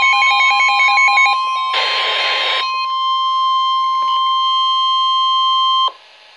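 NOAA Weather Radio's 1050 Hz warning alert tone, a steady single-pitched alarm announcing a severe thunderstorm warning. Other warbling tones sound over it in the first second and a half, and a short burst of hiss comes about two seconds in. The tone cuts off suddenly about six seconds in, leaving faint radio hiss.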